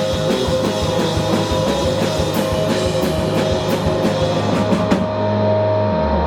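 Indie rock band playing live, drums and cymbals beating steadily under guitar and bass; about five seconds in the drums stop and a held chord rings on.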